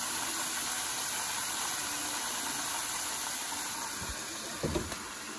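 Flour-coated chicken pieces deep-frying in hot oil in a pot: a steady sizzle. A couple of soft bumps come near the end.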